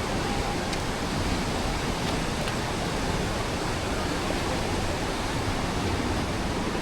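Steady roar of a large waterfall: water crashing down into its plunge pool as a constant rushing hiss.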